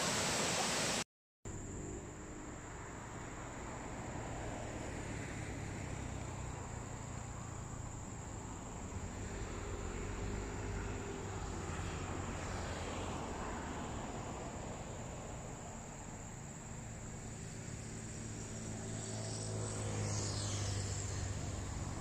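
Insects droning steadily at a high pitch over a low, distant engine hum that swells and fades. A brief cut to silence comes about a second in.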